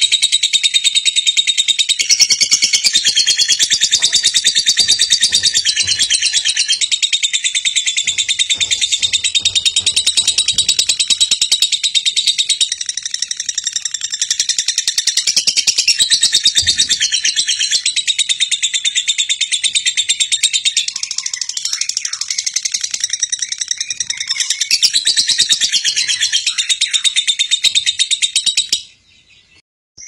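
A lovebird singing a long, unbroken run of very fast, high chattering notes. It breaks off briefly near the end, then starts again. This is the nonstop 'ngekek' trill that Indonesian keepers call konslet.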